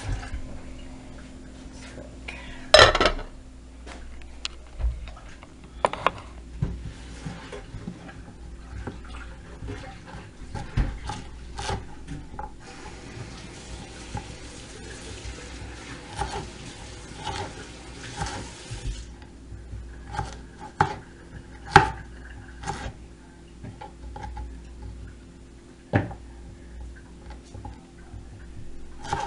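Kitchen knife cutting vegetables on a wooden cutting board, with scattered knocks and clatter of dishes. A sink tap runs with a steady hiss and cuts off about two-thirds of the way through.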